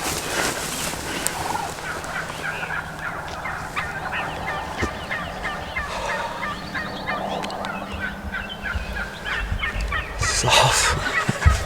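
Wild Gould's turkeys gobbling, a run of quick rattling call notes, with a brief rustle near the end.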